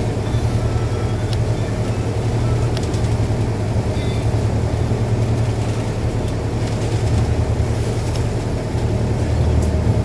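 Fishing boat's engine running steadily with a deep, even hum.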